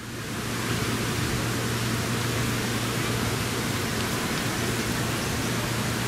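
Steady outdoor ambient noise: an even hiss with a low hum underneath, fading in at the very start.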